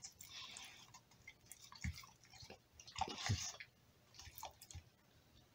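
A pitbull mouthing and chewing raw Cornish hen pieces: faint, irregular mouth clicks and smacks, the loudest about two seconds and three seconds in.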